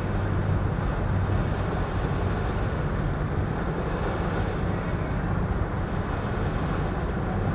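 Boat engine running with a steady low hum, under an even rush of water and wind noise.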